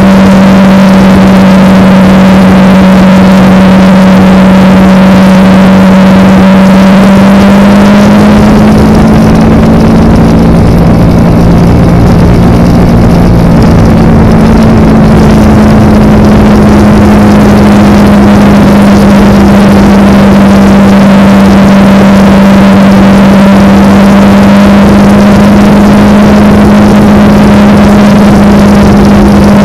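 Kawasaki Ninja motorcycle engine running at a steady road speed, a constant drone with rushing wind noise. About a third of the way in, the pitch rises a little and the low rumble swells for several seconds before settling back.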